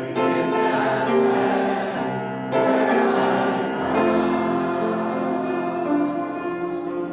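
Congregation singing a hymn together, the voices holding long, sustained notes through the closing line.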